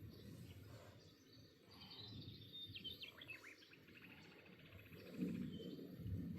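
A songbird singing one short phrase of quick falling chirps that run into a brief trill, starting about two seconds in. Under it is a faint low rumble, which grows louder near the end.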